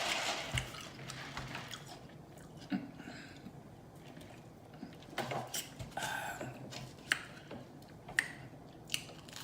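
Close-up mouth eating sounds: chewing with scattered wet clicks and lip smacks, a few sharper ones in the second half.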